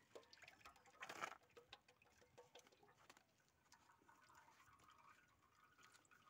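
Faint dripping and pattering of used engine oil draining from an upturned spin-on oil filter into a metal basin, with a brief louder noise about a second in.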